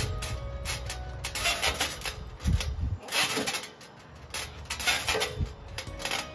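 Metal swing set bar and frame creaking and rattling as a person swings from it, a burst about every one and a half seconds in time with the swings.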